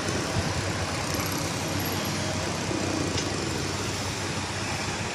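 An engine running steadily, with a low hum, amid general outdoor noise.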